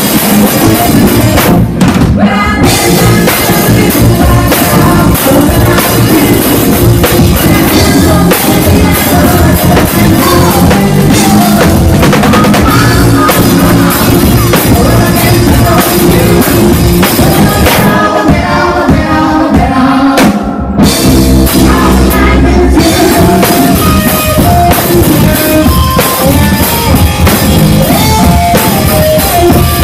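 Live band playing loud rock music, with the drum kit close and prominent, driving bass drum and rimshots, and a singer's vocals over the band. The sound drops out briefly about two-thirds of the way through.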